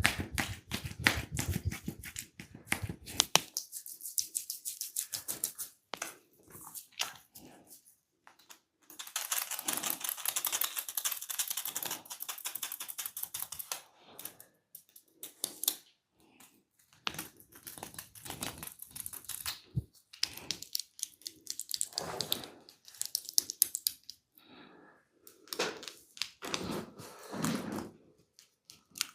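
Hands massaging oiled skin: rapid, irregular patters of sharp taps and slaps, with a longer stretch of fast rubbing and patting about nine to fourteen seconds in.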